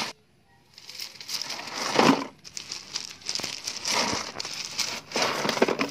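Small river pebbles crunching and clicking against one another as a gloved hand spreads and presses them into a stone path. After a brief near-silence at the start, the sound comes in several bursts.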